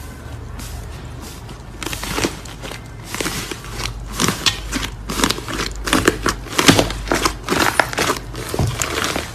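Crunchy slime being squeezed and worked by hand, giving dense crackling and popping that starts about two seconds in and grows louder, over a low steady hum.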